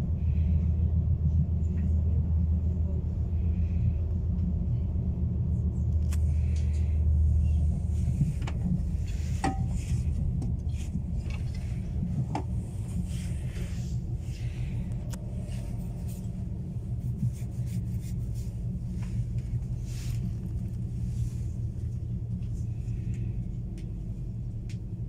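Cabin noise of an ESh1 electric train on the move: a steady low rumble of wheels and running gear. It is heaviest for the first eight seconds or so, then eases a little, with scattered light clicks and knocks over it.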